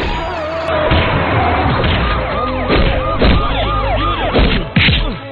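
Dubbed film-style fight sound effects: several sharp punch and smash hits, with a quick rising-and-falling siren-like whoop repeated about half a dozen times through the middle.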